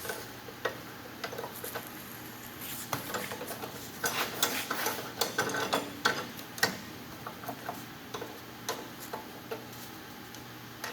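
Scattered light clicks and knocks of small hard objects being handled, busiest about four to five seconds in, over a faint steady hum; the saw is not running.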